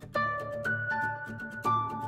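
Background music: sustained melody notes that change every half second or so over a low bass line, with a quick, steady ticking beat.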